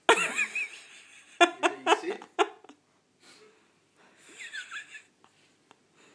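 A person laughing: a high squeal at the start, then a quick run of ha-ha bursts about a second and a half in. A brief, quieter high falling sound follows near the end.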